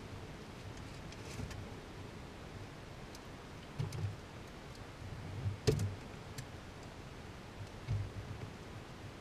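Faint steady hiss with a few scattered small clicks and soft low knocks, the sharpest a little past halfway; the aircraft's engine is shut down and its propeller stopped, so no engine is running.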